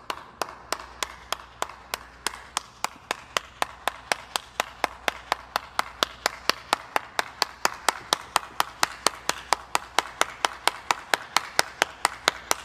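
One person clapping alone with steady, even hand claps at about three a second.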